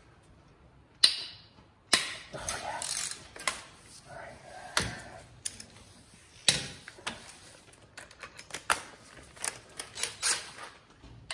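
Metal hand tools clinking and knocking as a long-handled ratchet and socket are worked on transmission bolts and tools are picked up and set down: a dozen or so sharp, irregular clanks and clicks with short gaps between.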